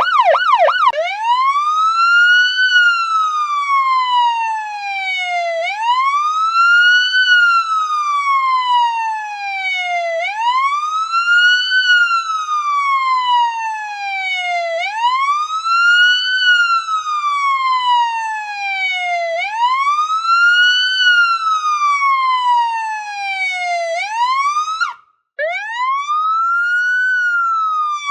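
Electronic police siren: a fast yelp in the first second, then a slow wail, each cycle rising for about two seconds and falling for about two and a half, repeating about every four and a half seconds. A few seconds before the end it cuts out for an instant and starts a new rise.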